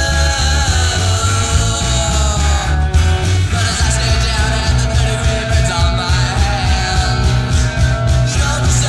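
Rock music with a pulsing bass line under sustained guitar or vocal tones.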